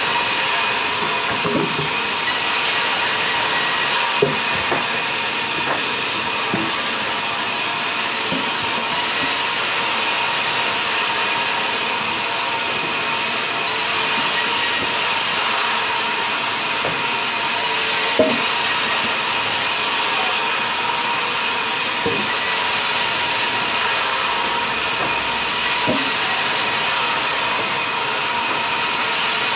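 Sawmill band saw running and cutting through logs: a steady hiss of blade and sawdust over a constant machine whine, with occasional short knocks as logs are shifted on the table.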